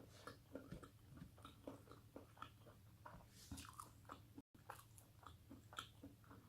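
Faint chewing and mouth sounds of a person eating, made of small irregular wet clicks, with a brief gap of total silence about four and a half seconds in.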